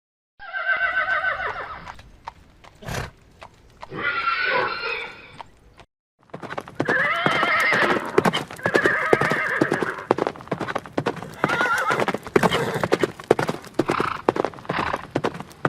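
A horse whinnies twice, with a single sharp click between the calls. After a brief pause, rapid hoofbeats start, with repeated neighs over them.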